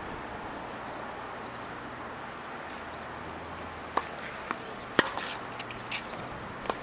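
Tennis ball being played: sharp pops of racket strikes and ball bounces on a hard court. They begin about four seconds in, and the loudest comes about a second later, over a steady background hiss.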